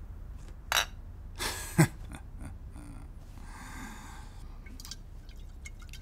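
Small drinking and breathing sounds: two short mouth sounds about one and two seconds in, the second a low gulp and the loudest, then a breathy exhale about three and a half seconds in, with a few faint clicks.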